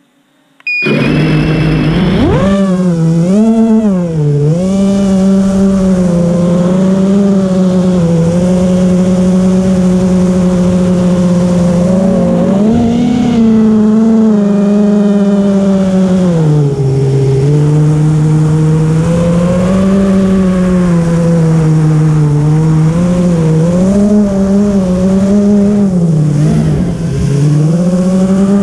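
FPV racing quadcopter's motors and propellers, heard from its onboard camera: a loud buzzing whine that starts abruptly about a second in as it lifts off, its pitch rising and falling with the throttle.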